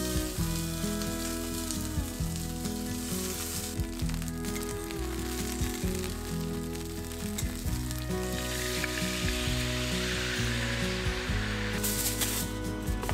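Chicken-thigh rolls wrapped around burdock sizzling as they brown in a stainless steel frying pan, turned now and then with metal tongs; the sizzling gets stronger about two-thirds of the way in. Near the end, aluminium foil crinkles as it is handled.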